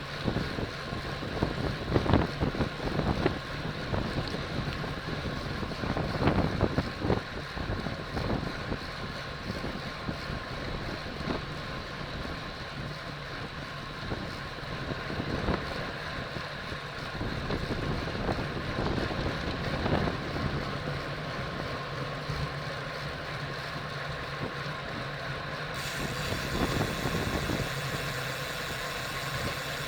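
Wind rushing and buffeting over the microphone on a road bicycle ridden at race speed, with gusts strongest in the first several seconds.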